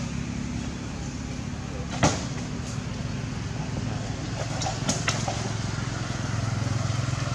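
Steady low drone of an engine running, with one sharp knock about two seconds in and a few fainter clicks a little before the middle.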